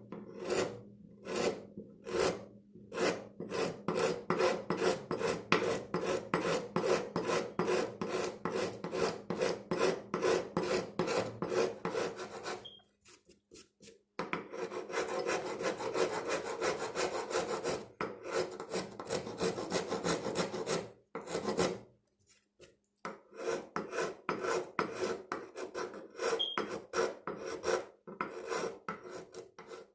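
Four-in-hand rasp filing a wooden axe handle in quick back-and-forth strokes, about two to three a second, shaping the handle. The strokes stop twice for a second or so, once near the middle and again about two-thirds of the way in.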